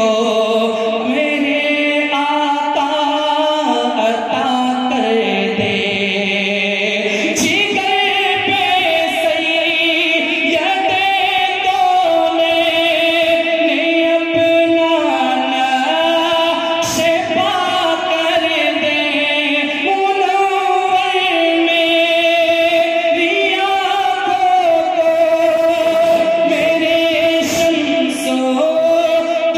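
A naat, an Islamic devotional song, sung by layered voices in long, held, melismatic notes with no instruments.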